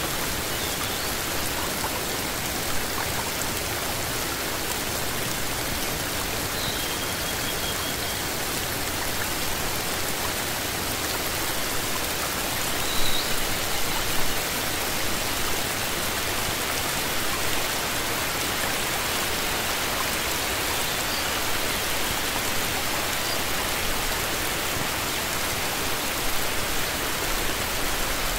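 Steady rain falling on leafy plants, an even hiss with a few louder drops about halfway through.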